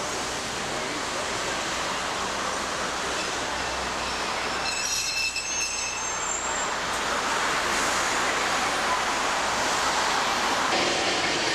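Streetcar running on street track amid passing road traffic, a steady rush of noise, with a brief high-pitched squeal of steel wheels on the rails about five seconds in.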